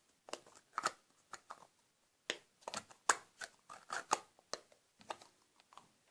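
Plastic lid of a slime container clicking and scraping in a string of irregular taps as it is pressed down. The lid will not snap shut, which the girl thinks is because it is catching on something.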